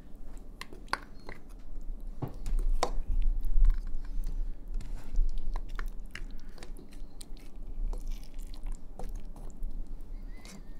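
Irregular light clicks and knocks of a utensil against a pot and dish, from handling cooked lamb-stew ingredients as bones are picked out and peeled potatoes put back.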